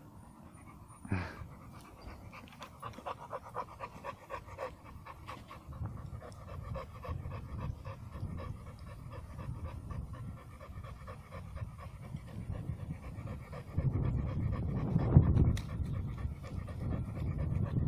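Young American Staffordshire Terrier panting in a quick, even rhythm, mouth open, after a walk. About a second in there is a short falling sound. From about fourteen seconds in, louder low rustling and bumps take over.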